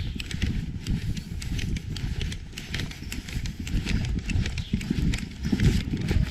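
Ridden horse's hoofbeats: a quick, uneven run of sharp clicks over a steady low rumble.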